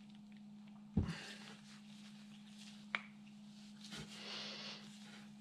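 Quiet handling of track-tensioner parts on a workbench: a dull knock about a second in, a sharp metallic tick near the middle, then a light knock and a brief scrape. A steady low hum runs underneath.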